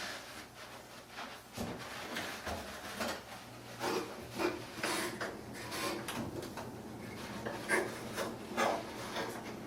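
Irregular scraping and rubbing of parts being handled inside an opened clothes dryer, with a few sharper knocks in the second half.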